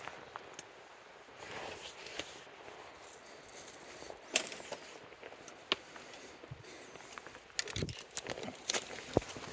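A hiker's footsteps on a rocky mountain trail: irregular crunches and scuffs with sharp knocks of boots on stone, the loudest about halfway through and a quicker cluster near the end.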